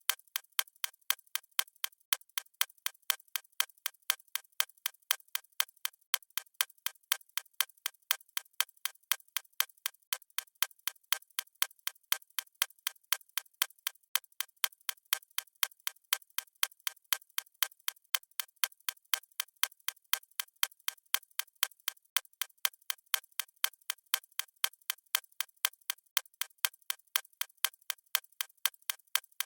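Clock ticking sound effect of a countdown timer: a steady run of sharp, evenly spaced ticks with no change in pace or level.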